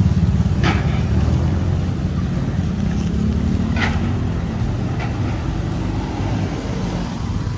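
Motorcycles and a pickup truck driving up off a river car-ferry ramp, over a steady low engine rumble. Three short high-pitched sounds break through the rumble.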